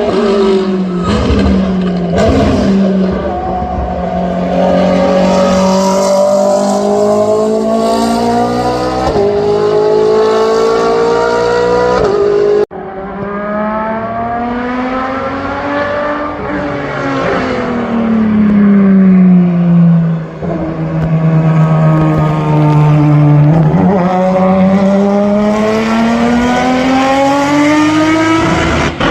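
Racing car engines revving, the engine pitch rising and falling over several seconds as they pull through the rev range. About twelve seconds in the sound cuts off abruptly and another engine run picks up, again sweeping down and back up in pitch.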